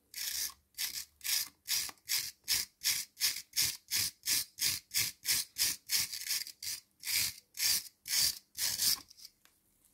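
Wire brush scrubbed back and forth over a rusty skeleton key loosened by a vinegar soak, taking the rust off to clean metal. A rhythmic scratching at about two and a half strokes a second that stops about nine seconds in.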